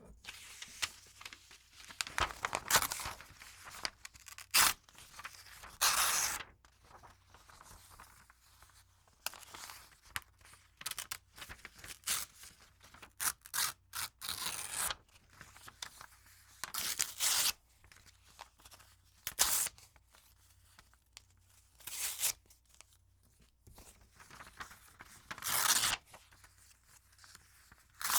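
Paper being torn again and again: a series of separate rips of different lengths, some short and sharp, some drawn out, with quieter crinkling between them.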